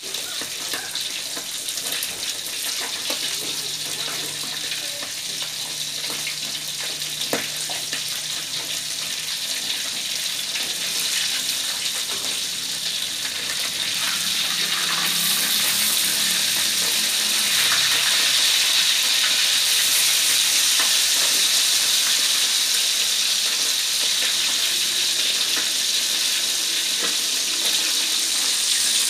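Small whole fish frying in hot oil in an aluminium wok: a steady sizzle, with a metal spatula scraping and tapping the wok as it turns them. The sizzle grows louder about halfway through.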